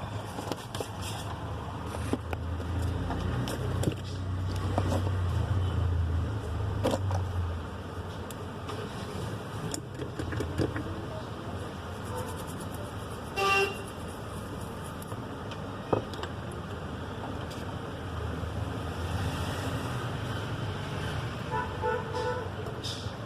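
Street traffic: a low vehicle rumble swells and fades in the first several seconds, and a vehicle horn gives a short toot about halfway through, with a few light clicks.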